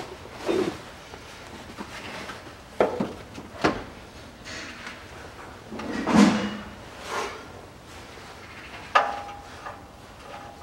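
Scattered knocks, clunks and scrapes of hand work as a new cooling radiator is worked into place from underneath a truck. There are about six sharp knocks, the loudest a little after the middle and near the end.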